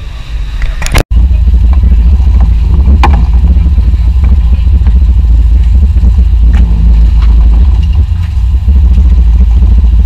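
Sportfishing boat running underway: a loud, steady low engine rumble that starts after a brief dropout about a second in, with a few faint clicks over it.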